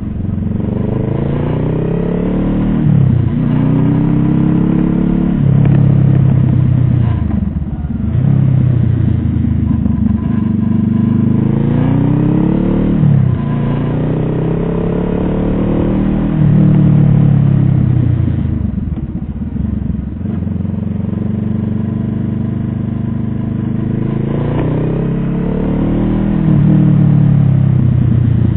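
Vehicle engine pulling through the gears: its pitch climbs steadily, then drops sharply at each gear change, about five times over the stretch.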